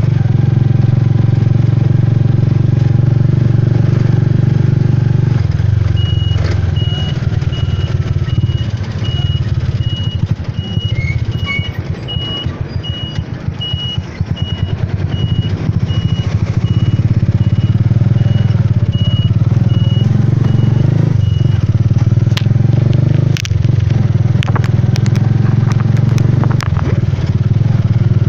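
Small motorcycle engine running steadily under a moving ride, heard from the sidecar of a motorized tricycle. A high electronic beep repeats a little faster than once a second through the middle, and a few sharp clicks come near the end.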